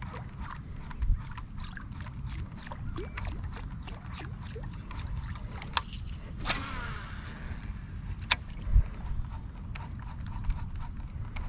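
Kayak fishing handling noise: scattered light clicks and knocks from a rod, a reel and the plastic kayak hull, with a few sharper knocks and one low thump in the second half, over a steady low rumble.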